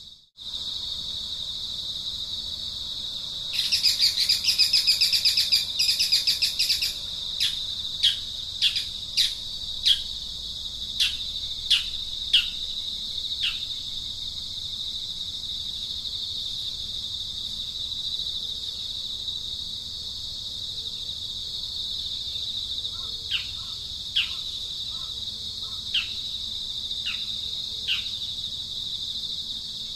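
A bird calling over a steady, high insect drone: a rapid chattering burst about four seconds in, then a string of short, sharp downward calls, which return at intervals in the second half. The sound drops out briefly at the very start.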